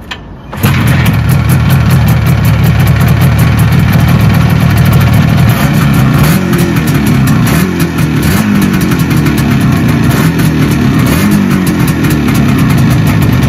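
IZh Jupiter two-stroke twin-cylinder motorcycle engine starting about half a second in and running loudly. Engine speed rises and falls in the second half. It is running on newly fitted ignition coils, replacing a faulty coil that had made one cylinder cut out.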